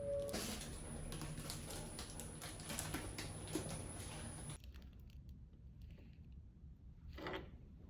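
Rapid light clicks and taps of typing on a computer keyboard, stopping abruptly a little over halfway through. Near the end comes one short, soft sound.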